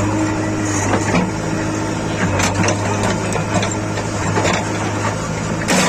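Backhoe loader's diesel engine running steadily, with a few sharp knocks and clatter from the working machine.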